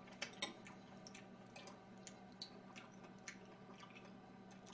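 Quiet eating sounds: faint, scattered small clicks and ticks of utensils and chewing over a low steady hum.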